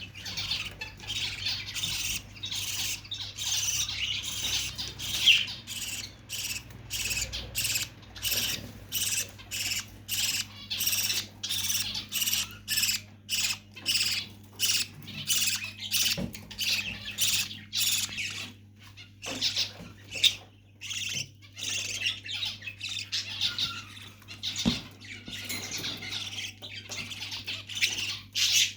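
Lovebirds calling: a rapid, continuous series of short, sharp chirps and squawks, several a second, thinning out for a few seconds past the middle before picking up again.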